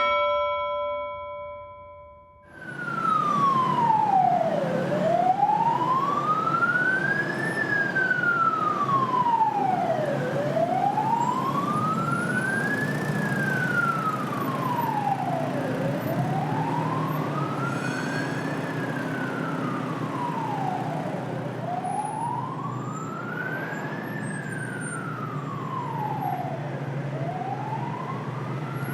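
Emergency-vehicle siren on a slow wail, rising and falling about every five and a half seconds, over the steady low rumble of city traffic. The siren sets in sharply about two and a half seconds in, after a few steady tones fade out.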